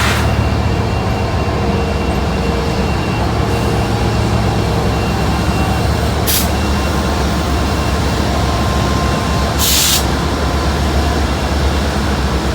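Diesel locomotive engines running with a steady deep rumble, with two short bursts of compressed-air hiss, about six seconds in and near ten seconds.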